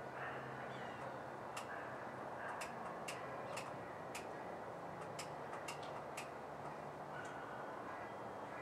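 Sharp metallic clicks and clinks at irregular intervals, about ten of them in the first two-thirds: hand tools knocking against metal while working in a diesel pickup's engine bay, over a faint steady hum.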